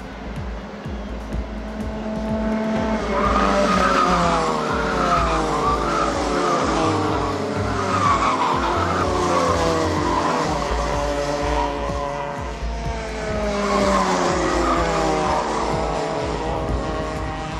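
Racing car engine revving hard, its pitch climbing and dropping again and again through gear changes and lifts, loudest from about three seconds in until near the end.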